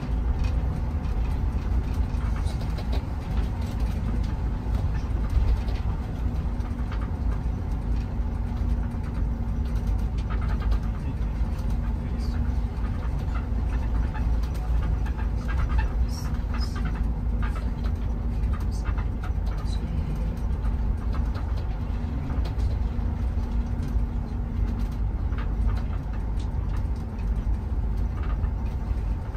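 Steady engine and road rumble heard from inside a moving shuttle bus, with a constant low hum and a few faint short squeaks over it.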